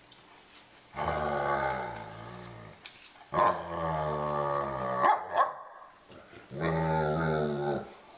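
Young Labrador retriever growling and grumbling in three long, wavering bouts, a begging, submissive play-growl aimed at the older dog guarding the cup.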